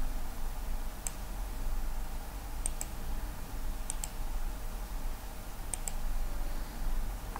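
Computer mouse button clicking: a few single clicks and quick double clicks, over a steady low hum.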